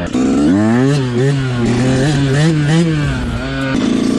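Yamaha dirt bike engine under throttle, revving up and backing off repeatedly so its pitch climbs and drops several times, with a short dip near the end before it picks up again.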